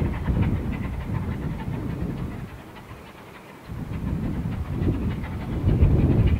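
Bulleid Light Pacific steam locomotive 34070 'Manston', a three-cylinder engine, working with a rapid rhythmic exhaust beat. The beat dies down to a quieter lull about halfway through, then comes back stronger near the end.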